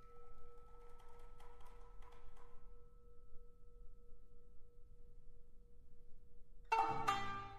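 Quiet opening of an orchestral shamisen concerto: a single struck bell-like tone rings on and slowly fades, with faint light percussion ticking under it in the first seconds. Near the end the ensemble comes in with a loud, sharply plucked chord.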